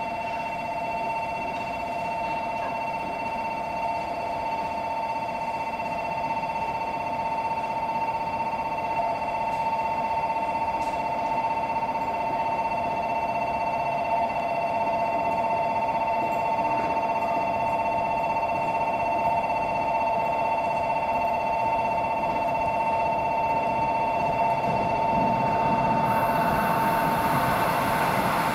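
Station platform's train-approach warning alarm ringing continuously in two steady tones, warning that a train is about to pass through without stopping. Near the end the approaching train's running noise rises underneath it.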